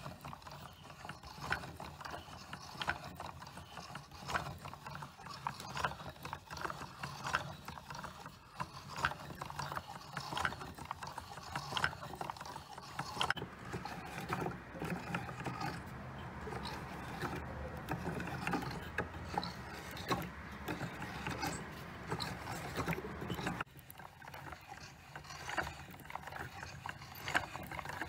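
A boy-and-dog automaton's mechanism running, its gears and linkages clicking and rattling continuously over a low steady hum that drops quieter near the end. The parts have some looseness in them, which shows in the jerky, uneven motion.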